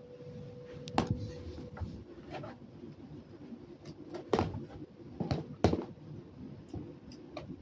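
A handful of sharp knocks and clunks at irregular moments, the loudest about four and a half and five and a half seconds in, over a low background rumble.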